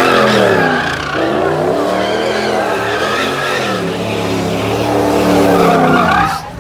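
Pickup truck doing donuts: the engine revs up and down over and over while the spinning rear tyres squeal. The sound cuts off suddenly near the end.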